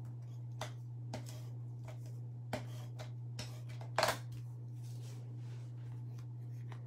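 Cardstock being handled: scattered short rustles and taps as paper pieces are pressed down and moved, the loudest about four seconds in, over a steady low hum.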